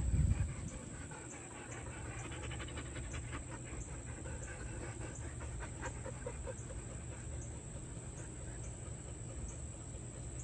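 Husky panting close to the microphone over a low steady rumble, with a low thump right at the start.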